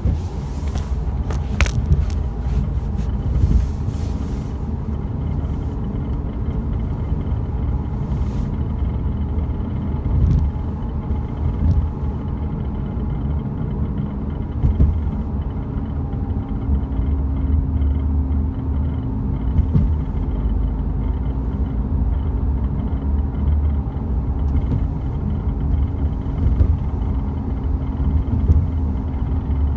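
Mk7 Volkswagen Golf GTI on the move: a steady low road and engine rumble, with short rattling clicks now and then from somewhere in the car. A steady hum joins in about halfway through.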